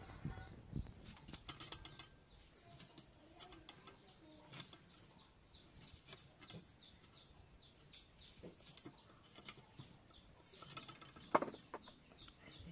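Quiet rural ambience: scattered light clicks and knocks with faint bird chirps, and one sharper knock about eleven seconds in.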